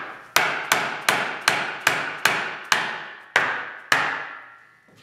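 Hammer tapping the end of a log post to drive its tenons into the mortises of a log bed frame: about nine sharp blows, two to three a second, spacing out slightly near the end, each ringing briefly.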